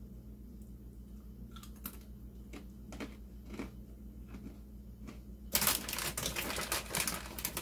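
A few scattered light clicks and taps, then from about five and a half seconds in a louder, dense crinkling and crackling, like something being handled and rustled.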